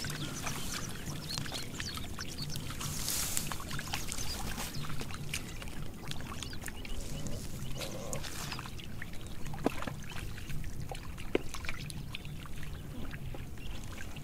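Water splashing and trickling in shallow muddy field water, with many small scattered clicks over a steady low rumble.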